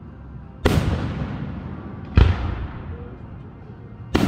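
Aerial firework shells bursting overhead: three sharp booms, about a second and a half apart, the last near the end, each dying away over a second or so.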